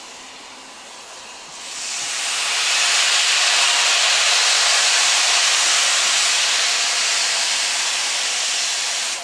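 Steam locomotive 6023 King Edward II, a GWR King class, standing with steam hissing out of it loudly. The hiss swells up about a second and a half in, holds steady, then cuts off sharply near the end.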